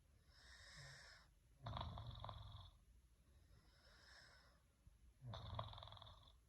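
A person snoring in deep sleep: two rattling snores about three and a half seconds apart, each with a softer airy breath between them.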